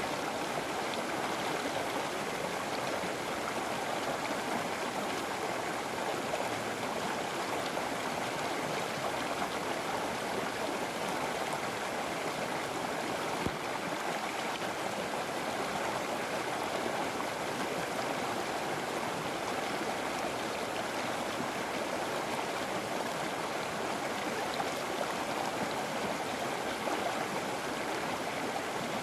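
River water flowing over rocks, a steady rushing and gurgling with no let-up.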